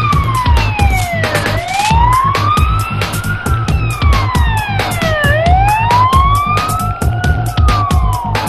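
Wailing siren, its pitch rising for about two seconds and falling for about two seconds, over and over, layered over a music track with a fast, steady beat and a stepping bass line.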